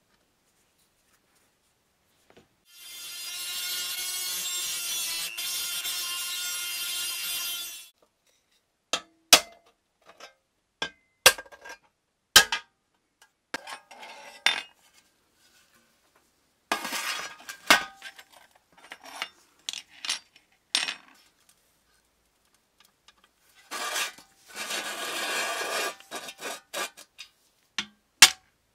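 A small handheld electric power tool, a rotary tool, runs steadily on metal for about five seconds. Then come scattered clinks and knocks of metal parts being handled, a second rasping run of a couple of seconds, and a single sharp hammer strike on a punch near the end.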